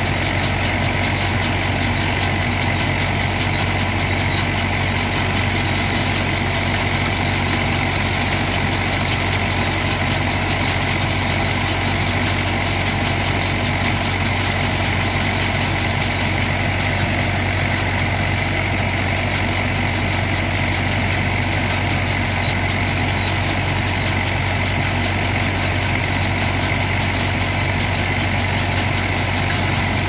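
Massey Ferguson 180 tractor engine idling steadily, a constant low hum with no change in speed.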